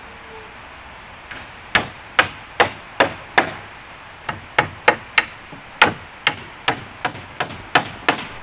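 A hammer driving nails into wood: sharp blows about two to three a second in three runs with short pauses between, starting a little under two seconds in.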